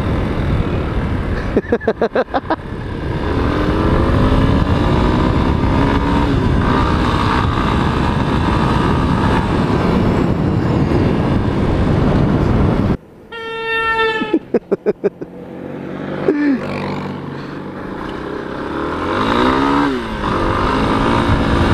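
Motorcycle riding along a gravel road: heavy wind rush on the camera microphone over the engine, which rises in pitch as it pulls through the gears. A horn sounds steadily for about a second and a half about 13 seconds in, and short strings of quick clicks come near the start and again just after the horn.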